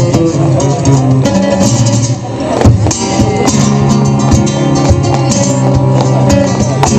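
Acoustic flamenco guitars playing a bulería, with strummed chords over sustained bass notes. There is a brief dip in loudness a little after two seconds, then a sharp strum.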